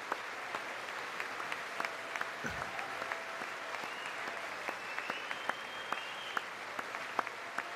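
A large audience applauding steadily, a dense patter of many hands clapping.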